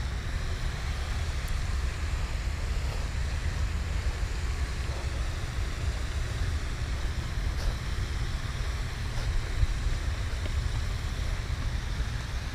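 Wind buffeting the microphone: a steady, fluttering low rumble with a light hiss over it.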